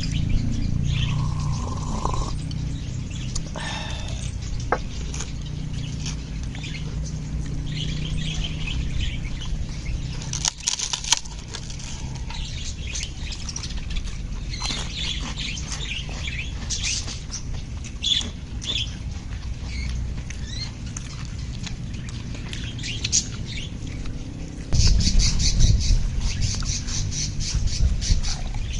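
Birds chirping and calling over a steady low rumble. About 25 seconds in, a louder, denser run of rapid, harsh calls begins.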